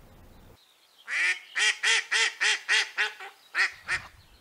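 Live decoy hen duck calling a run of about ten loud, quick quacks, the call that lures a drake in to her.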